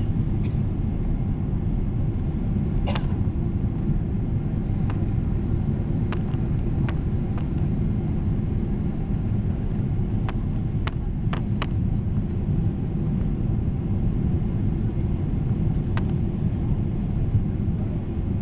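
Steady cabin noise of an airliner on its landing approach, engine and airflow noise heard from a window seat over the wing. A few faint short clicks are scattered through it.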